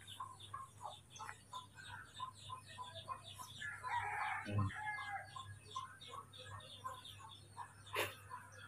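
Chickens clucking in a steady run of short calls, with a rooster crowing about four seconds in. A single sharp knock near the end.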